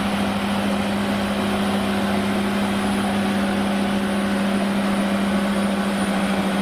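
Caterpillar D6R crawler bulldozer's diesel engine running at a steady, even hum while the machine pushes sand with its blade.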